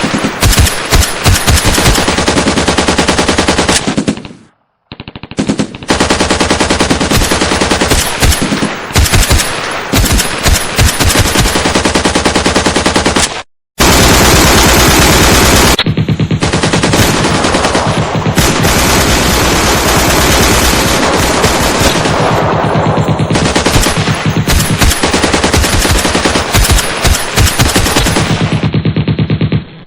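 Machine-gun firefight sound effect: loud, rapid bursts of automatic gunfire. It breaks off briefly twice, about four and a half and thirteen and a half seconds in, then runs as a long unbroken stretch of fire.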